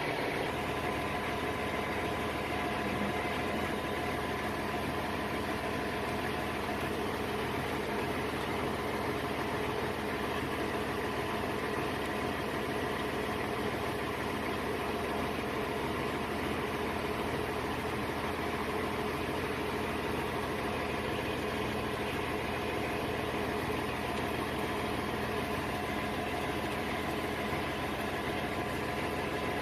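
A diesel engine idling steadily and evenly.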